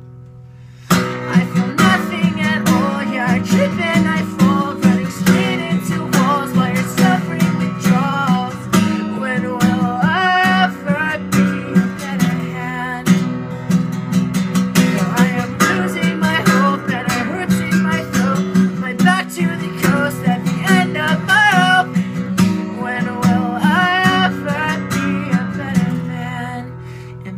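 Acoustic guitar strummed hard in a steady rhythm. It comes in about a second in after a near-quiet pause and eases off near the end.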